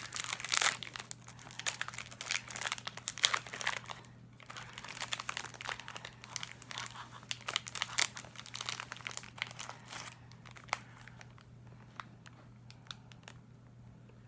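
Plastic wrapper on a roll of cookies crinkling and crackling as it is opened, busy for about the first ten seconds, then thinning to a few scattered crackles.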